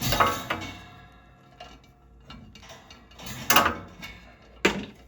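A fan's power cord being unwrapped: the cord and plug rattle and knock against the fan, with a sharp clatter at the start, another about three and a half seconds in and a sharp knock near the end.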